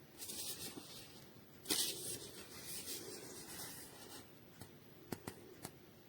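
Rubbing and scraping noise in two spells, the second starting with a sharp knock, followed by four light clicks near the end.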